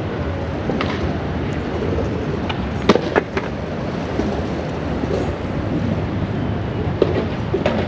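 Steady, noisy background din with a few sharp clacks: two close together about three seconds in and another near the end.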